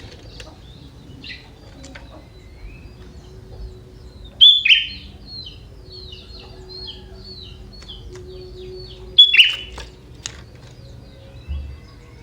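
Young sooty-headed bulbul (kutilang) singing, its song carrying prenjak-like notes. There are two loud falling calls, about four seconds apart, each followed by a quick run of short chirps, with softer twittering in between.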